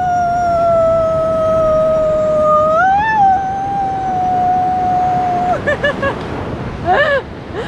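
A dog howling: one long, nearly steady howl lasting about five seconds, then a few short yelping cries near the end.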